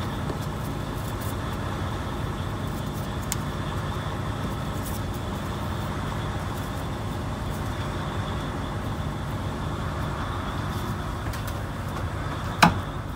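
Steady machinery hum with even background noise, like an engine idling, and one sharp click near the end.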